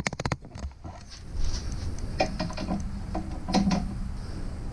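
Ratchet wrench clicking rapidly for a moment, then scattered metallic clinks and knocks of a torque wrench and socket being handled and fitted onto a suspension bolt.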